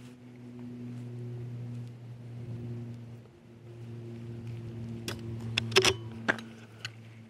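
A steady low engine-like hum, with a few sharp clicks about five and six seconds in.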